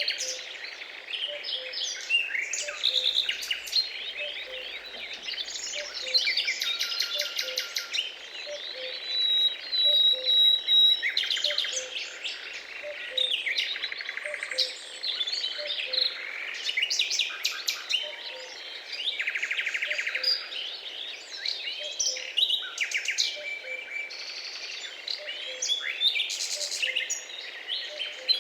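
Many birds chirping and calling over one another, with several rapid trills, over a faint regular low pulse about twice a second.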